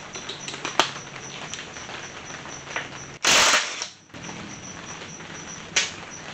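Cordless impact driver hammering for about half a second, a little over three seconds in, zipping out a 10 mm bolt on an NP231 transfer case housing. Light metallic clinks of the socket and tools come before and after.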